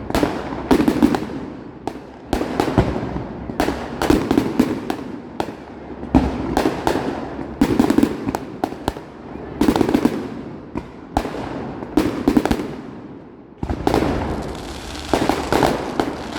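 Fireworks display: a rapid, irregular string of shell bursts and crackling reports, several bangs a second, with rumbling echoes between them.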